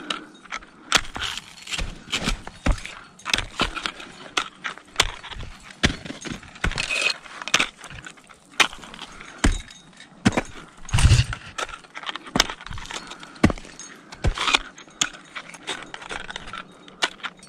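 Ice axes and crampons biting into hard snow and bare ice in irregular sharp strikes, about one or two a second, with a heavier kick about eleven seconds in. Metal climbing hardware clinks in between.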